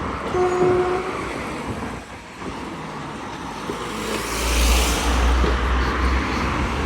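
Steady road traffic on a busy main road, with one vehicle passing close from about four and a half to six seconds in, its low rumble and tyre hiss swelling and then fading. A short steady tone sounds about half a second in.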